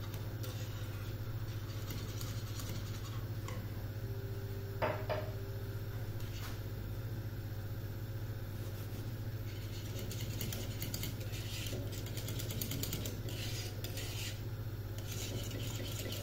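Wire whisk beating béchamel sauce in a saucepan, scraping and clinking against the pan, over a steady low hum. One sharper clink about five seconds in is the loudest moment. The whisking strokes come faster and denser in the second half.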